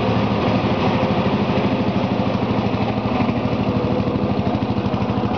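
Lawn tractor engine running steadily at low idle, with an even, rapid firing pulse.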